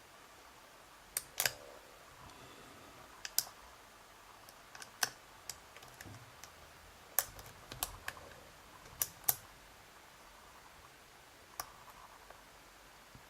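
Sharp metallic clicks and ticks from a hook pick and tension wrench working the pins of a pin tumbler lock, irregular single clicks and quick pairs about once a second, as pins are lifted and set under light tension.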